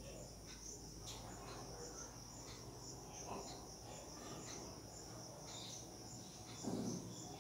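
Faint crickets chirping, a steady high pulsing trill, with one brief low thump near the end.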